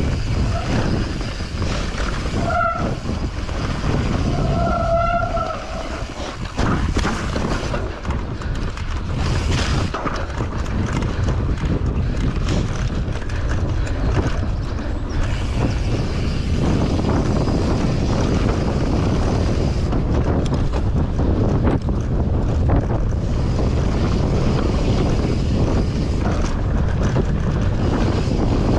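Wind rushing over the camera microphone as a mountain bike descends a trail at speed, with the rattle and knocks of the bike over rough ground. Two short pitched sounds come a few seconds in.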